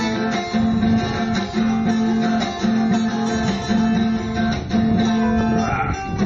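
Background music: guitar playing a plucked and strummed accompaniment, with a low note repeating about once a second.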